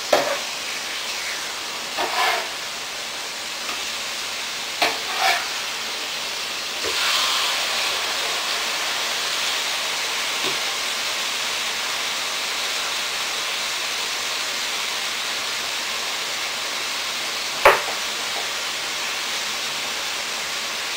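Steaks sizzling on an electric griddle: a steady frying hiss that gets louder about seven seconds in and then holds. A few short clicks and knocks of the tongs come in the first seconds, and one sharp click comes later.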